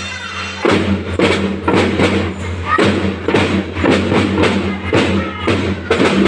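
Marching drum band playing a steady drum beat, loud evenly spaced strokes at about two to three a second.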